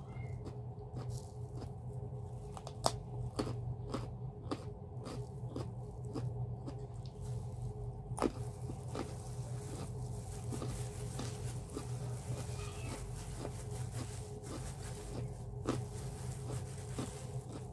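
Close-miked eating: chewing and crunching of food, with short sharp mouth clicks about twice a second over a steady low hum.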